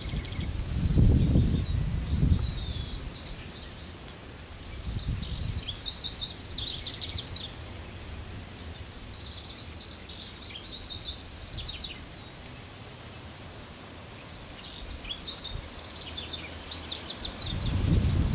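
Male Lazuli bunting singing: several quick bursts of high, rapid, jumbled notes, one every four or five seconds. A low rumble sits under the song near the start and again near the end.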